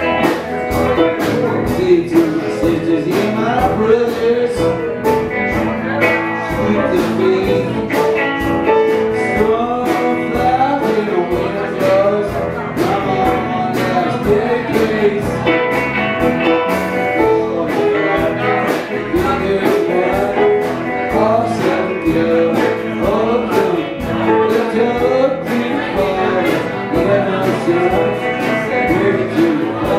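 Live band playing a song: electric guitars, keyboard and drums with a steady beat, and a lead vocal.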